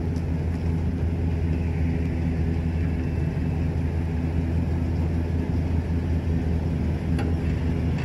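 Stock exhaust of a GMC Sierra's 5.3-litre V8, idling steadily at the tailpipe. This is the factory muffler and resonator, giving a low, even, fairly quiet note.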